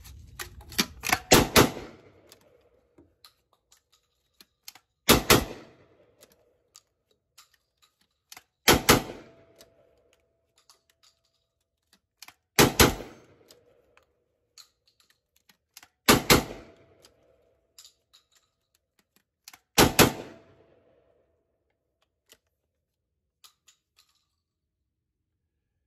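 12-gauge side-by-side double-barrel coach gun being fired. Six loud volleys about three and a half seconds apart, each a quick pair of shots from both barrels. Between them come small clicks of the action being broken open, the empties extracted, fresh shells loaded and the gun shut.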